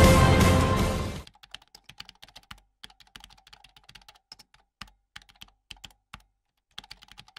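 Theme music fading out over the first second, then a typing sound effect: faint, quick, irregular key clicks with a short pause near the end, as on-screen text is typed out.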